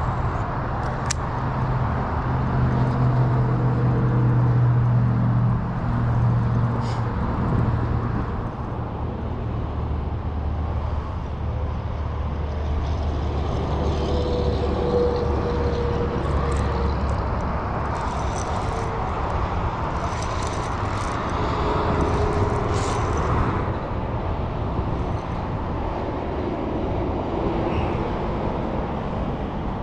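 Road traffic: vehicles running past, with a steady low engine hum from about two to eight seconds in and a deeper one from about ten to seventeen seconds.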